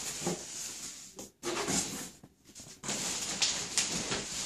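Plastic wrapping and cardboard rustling and crinkling as hands work inside a box around a wrapped stroller, with two brief pauses in the first half, then continuous rustling with small ticks.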